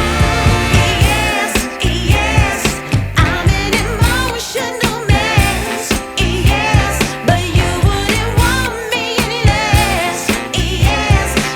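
Background song with a singer's voice wavering in vibrato over a steady beat.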